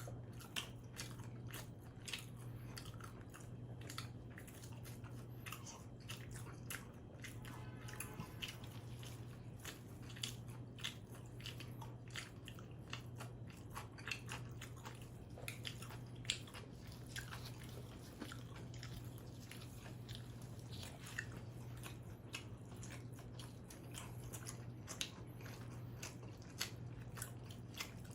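Close-miked biting and chewing of combination pizza, with frequent small crunchy clicks and smacks, over a steady low hum.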